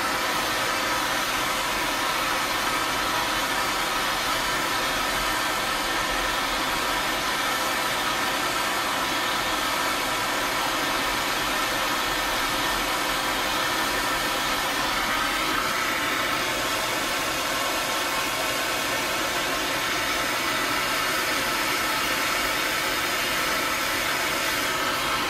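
Hand-held gas torch burning with a steady hiss, its flame heating a steel steering arm clamped in a vise to loosen a seized ball stud.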